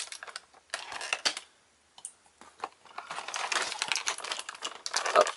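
Small snips clicking as they cut the ties holding a toy in its clear plastic packaging, then a brief lull, and from about three seconds in a steady crackling rustle of the plastic tray as the toy is pulled out.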